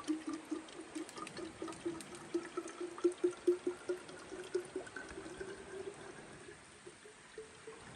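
Water being poured into a container, glugging in quick pulses, with the pitch rising steadily as the container fills. The glugging eases off after about five seconds.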